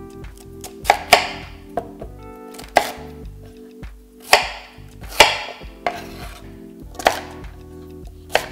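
Chef's knife cutting raw sweet potato into chunks: about ten irregular knocks as the blade goes through the dense flesh and hits the cutting board, some with a short slicing hiss.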